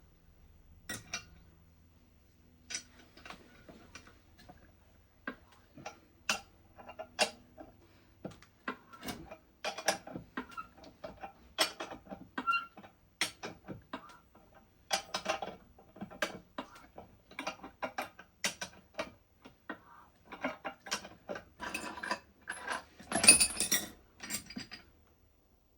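Irregular metallic clicks and clinks as a bearing race is pressed into a wheel hub with a makeshift press tool. A louder burst of clatter comes near the end.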